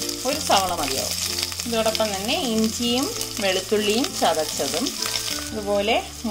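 Sliced onions sizzling in hot oil in a cast-iron pot, with a steady high hiss, as crushed ginger and garlic are dropped in. Background music plays over it, louder than the frying: a gliding melody over held bass notes.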